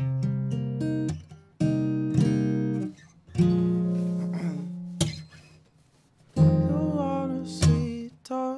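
Acoustic guitar playing a slow run of strummed chords, each struck and left to ring out and fade before the next. A soft sung line comes in over the chords about six seconds in.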